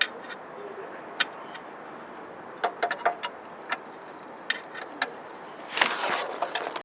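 Mitsubishi 4G63 engine running in an open engine bay: a steady mechanical rush with sharp, irregular clicks, growing louder in the last second before it cuts off. The engine has a new knock and rustle that the owner puts down to the idler pulleys, with oil spraying from it, which he takes for a leaking crankshaft seal.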